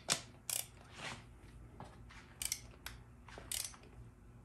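Click-type torque wrench on an extension clicking as the front pump bolts of a Dodge 48RE transmission are torqued: a string of short, sharp metallic clicks at uneven spacing, some close together.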